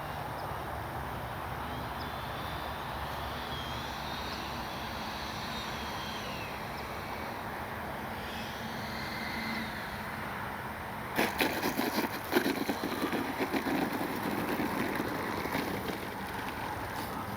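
An 80mm electric ducted fan RC jet on a landing approach, its fan a faint whine that rises and falls in pitch as it passes. About eleven seconds in, a louder run of clicks and rattles begins as it touches down for a touch-and-go and rolls along the runway.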